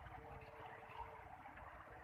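Faint, steady trickle of water flowing in a small ditch.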